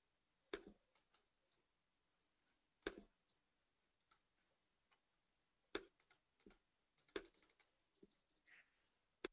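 Faint, irregular clicks and taps over near silence, a few at a time, coming thicker after about six seconds.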